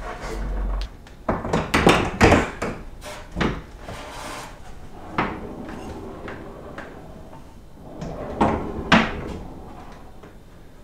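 Wooden sliding barn door rolling on its hanger wheels along a steel overhead track, with a series of knocks and clunks as the door is moved and handled.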